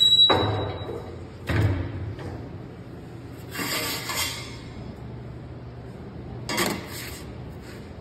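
Manual sheet metal brake bending a piece of sheet metal: two heavy clunks in the first couple of seconds, then two shorter rattling, scraping metal sounds about halfway through and near the end.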